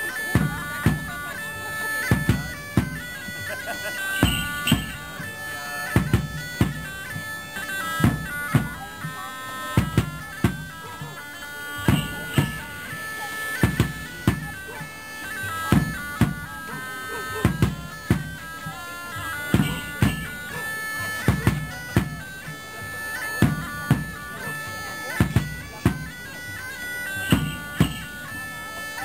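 Bagpipe music with drums: the pipes play a melody over a steady drone while a drum beats a regular rhythm.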